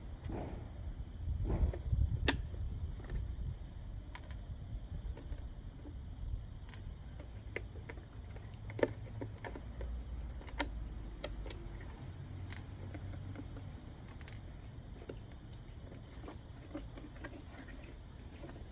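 Scattered small clicks and taps of tools and plastic as a tail light unit is handled and taken apart, over a low background rumble.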